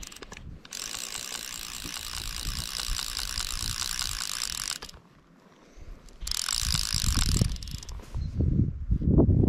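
Fly reel's click-and-pawl drag ratcheting rapidly as a hooked rainbow trout pulls line off it, in one long run of about four seconds and then a second short one. A louder low rumble follows near the end.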